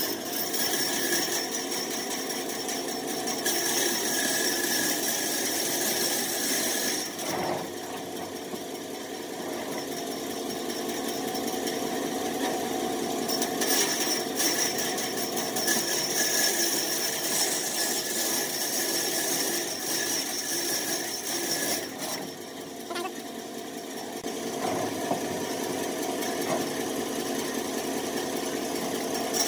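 Band saw running and cutting through a thick round slice of log. The cutting hiss swells and eases in long stretches as the wood is fed into the blade.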